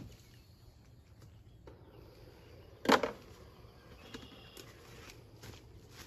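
A single sharp knock about three seconds in, followed by a few lighter clicks and taps.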